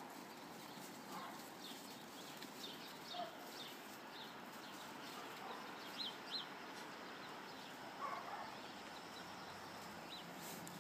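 Puppies playing in snow, giving a few faint, short, high-pitched squeaks and yips over a steady hiss.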